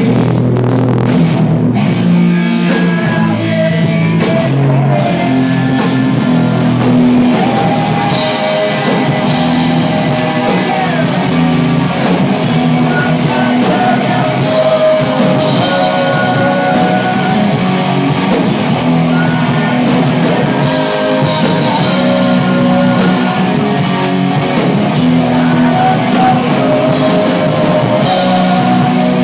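Hard rock band playing live and loud: electric guitars and a drum kit with singing, recorded on a phone close to the stage, thin on low bass.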